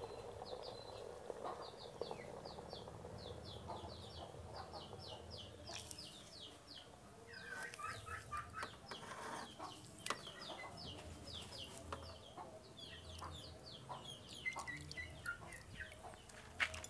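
Birds chirping in quick runs of short, high, falling notes, with a few sharp knocks, the loudest near the end.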